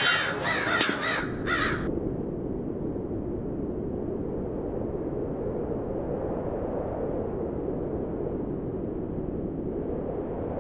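A crow cawing three or four times in quick succession within the first two seconds, then a steady low outdoor rumble with no distinct events.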